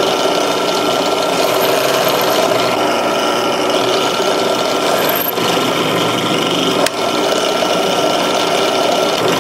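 Electric drill running steadily with a constant whine as it bores the heads off a pocket knife's pins, with a brief dip and click about seven seconds in.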